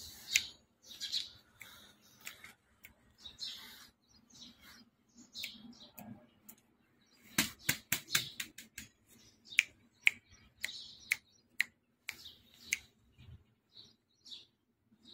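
Young puppies whining in short high-pitched squeaks, with a quick run of sharp clicks in the middle.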